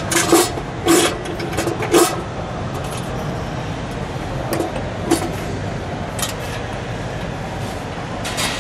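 Chrome air cleaner lid on a 426 Hemi being seated back over its carburettors and its wing nut turned down: light metallic clinks and taps, three sharp ones in the first two seconds, then a few fainter ones. A steady background hum of a busy hall runs underneath.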